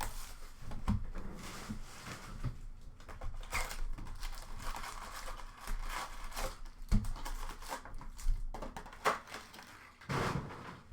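Packaging of a hockey card retail box being opened by hand: wrappers crinkling and tearing in irregular rustles, with a few light knocks.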